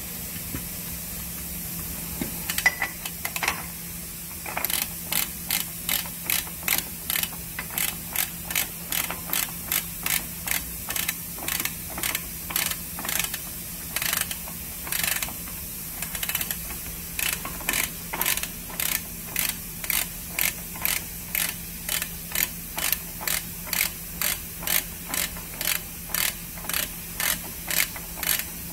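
Long-handled hand ratchet clicking as it is swung back and forth on a truck's steer hub, a steady run of sharp clicks at about two a second after a few knocks as it is fitted. A steady low hum lies underneath.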